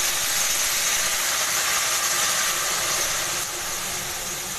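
Hot water poured into a kadhai of vermicelli frying in hot oil, hissing and sizzling loudly as the water hits the oil. The hiss is steady and eases a little about three and a half seconds in.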